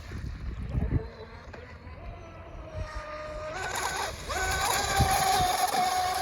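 Radio-controlled mono hull boat's SSS 2030kv brushless motor on 4S running on the water, a thin electric whine. It is fainter and lower at first, then the whine steps up in pitch and loudness about three and a half seconds in as the boat is throttled up, and holds there.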